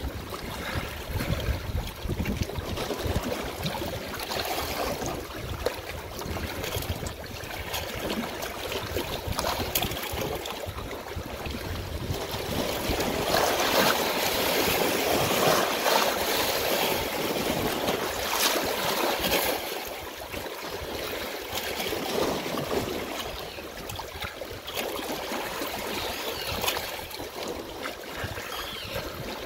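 Running water flowing steadily, an even rushing noise that grows somewhat louder for several seconds around the middle.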